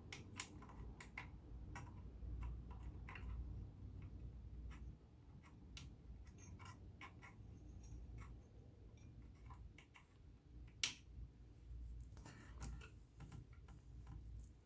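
Scattered light clicks and taps of metal parts and small tools being handled on a vintage all-metal sewing machine during cleaning and greasing, with one sharper click about eleven seconds in.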